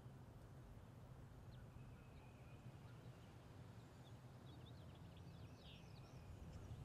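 Near silence: quiet field ambience with a low steady hum, and a few faint, short, high bird chirps, mostly between about four and six seconds in.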